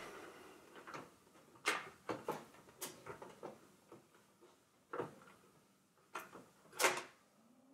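Revox B77 reel-to-reel tape recorder being handled and opened up: a run of irregular clicks and knocks from its parts and panels, the loudest about two seconds in and again near the end.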